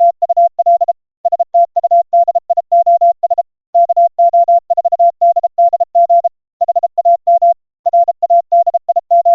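Morse code sent as a single steady beep tone of medium-high pitch, keyed in short and long elements (dits and dahs) with longer pauses between letter groups, a CW sidetone.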